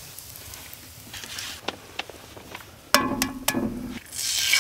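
An egg is knocked several times against a cast-iron skillet to crack it, about three seconds in. Near the end it drops into the hot bacon grease and a loud sizzle starts and grows.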